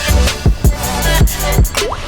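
Background music: a hip hop track with heavy bass drum hits.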